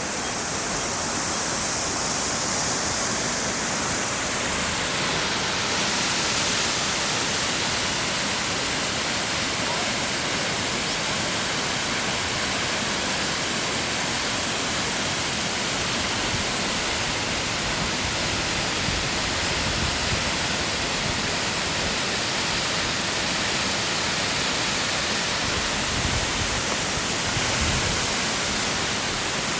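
Todoroki Waterfall's water falling, a steady rush.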